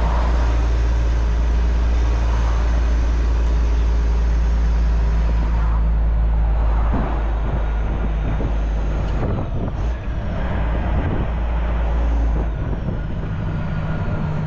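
Semi truck's diesel engine running while driving, a loud steady low rumble whose note changes about six seconds in.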